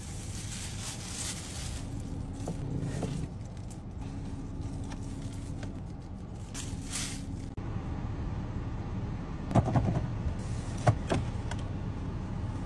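Steady low hum of a car interior with the engine idling, with short bursts of rustling as food and packaging are handled, and a few sharp clicks and knocks about ten seconds in.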